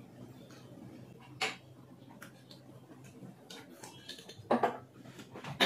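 Scattered light clicks and clinks of dishes and cutlery being handled over a steady low hum, with a sharper clink about a second and a half in and a few more near the end.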